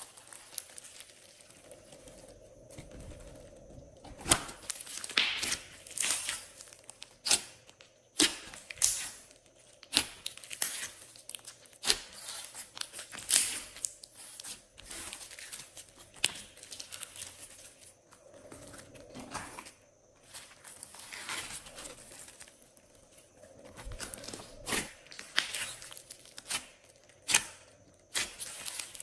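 Glossy slime being pressed, kneaded and stretched by hand, with irregular sticky crackles and pops.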